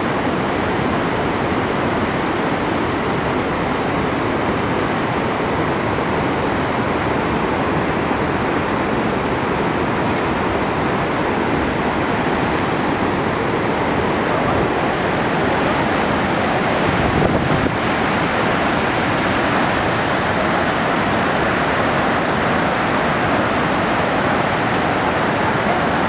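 Krimml Waterfalls, a high alpine waterfall and its whitewater river: a loud, steady rush of falling and churning water that holds without a break.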